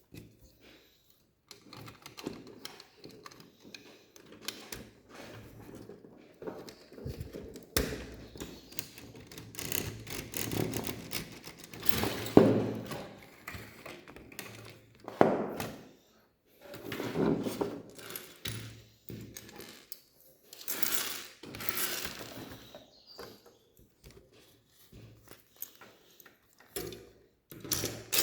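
Lego Technic plastic pieces being handled and pressed together: irregular small clicks and knocks, with a few louder spells of rummaging and rustling.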